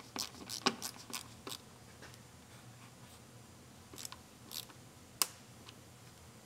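Small plastic clicks and snaps of car door-pillar trim being handled, screwed and pressed into place. A quick run of clicks in the first second and a half, a few more around four seconds in, and one sharp snap a little after five seconds.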